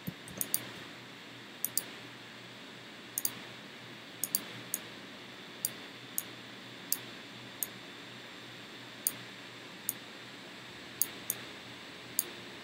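Computer mouse button clicking, short sharp clicks at irregular intervals, many in quick press-and-release pairs, as brush strokes are dabbed on in Photoshop, over a faint steady hiss.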